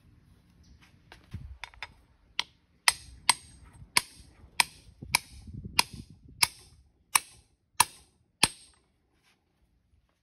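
A hammer striking a metal drift held against the shaft bearing in a John Deere hydraulic pump housing: about eleven sharp, ringing taps roughly every 0.6 s, after a few lighter clicks of handling parts.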